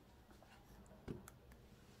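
Near silence with a few faint clicks and one louder click about a second in, the sound of keys being pressed on a Samsung SGH-T349 flip phone's keypad.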